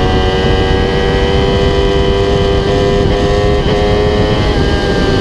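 Yamaha YZF-R6's inline-four engine running at high revs through an aftermarket MGP Growler exhaust, a steady high note with a few brief dips, over heavy wind rush.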